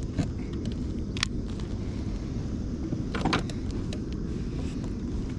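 A few sharp clicks and clacks from handling a baitcasting rod and reel, over a steady low rumble.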